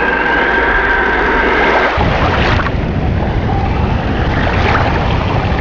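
Steady roar of rushing water from Multnomah Falls, with wind rumbling on the microphone from about two seconds in.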